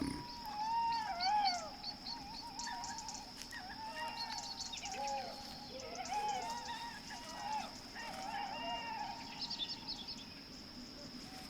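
A small animal's short, wavering calls repeating again and again, each sliding up and down in pitch, with quick faint chirps higher up.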